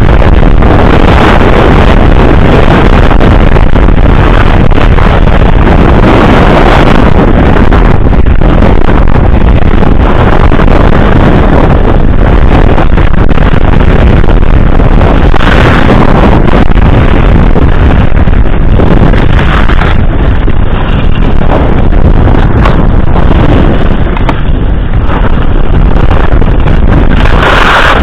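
Wind buffeting a body-worn camera's microphone during a downhill ski run: loud, continuous rushing, mixed with the scrape of skis carving on snow that swells briefly in turns, once about halfway through and again near the end.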